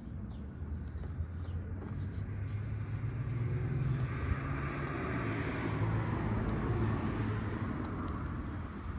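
An engine's low drone that builds up over the first few seconds, then holds steady.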